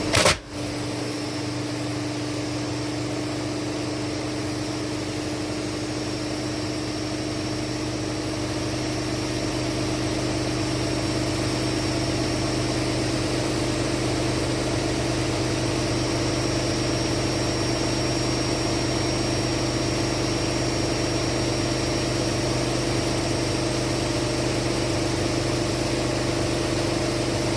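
Candy washing machine running at speed in a spin, a steady motor and drum hum that rises slightly in pitch and level over the first dozen seconds and then holds.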